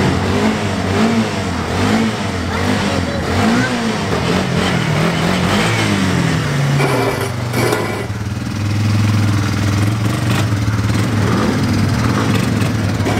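Quad ATV engines revving up and down again and again as the quads ride along a street, then settling into a steadier, lower note from about eight seconds in as one quad comes close, lifting its front wheels.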